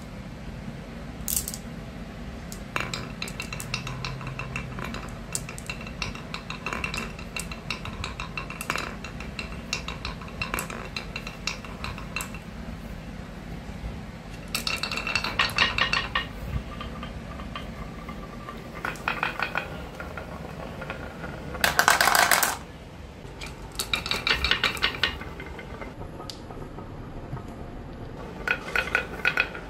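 Glass marbles rolling down wooden marble-run tracks, clacking against the wood and clinking against each other in rattling runs. The loudest run comes about two-thirds of the way through.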